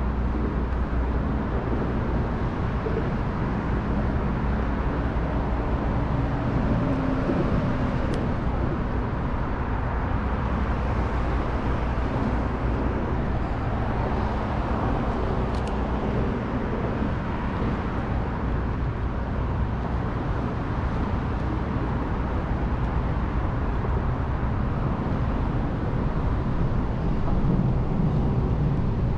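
Steady rumble of road traffic, with two brief sharp clicks about eight seconds apart.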